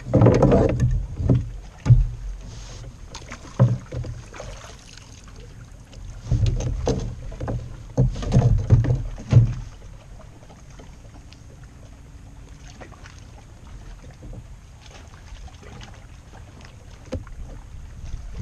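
Knocks and rustling as a small bass and a measuring board are handled aboard a fishing kayak, in bunches during the first half. After that only a steady low rush of wind.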